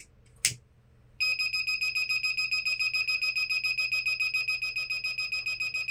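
The buzzer of a timer-IC fire alarm circuit sets off a high-pitched, rapidly pulsing beep, about ten pulses a second, starting about a second in and continuing: the thermistor has been heated with a flame, triggering the alarm. A single click comes just before it.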